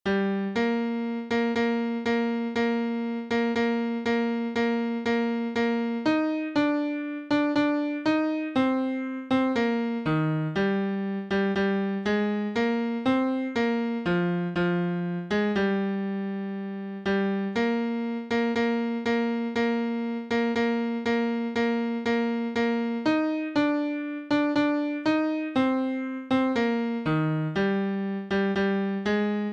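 Instrumental piano accompaniment of a hymn tune, played as full chords struck on a steady beat. One chord is held for about two seconds midway through.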